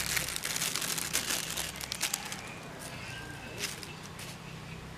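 Thin plastic bag crinkling as salt is tipped out of it into a bowl of spice mix, for about the first two seconds, then quieter.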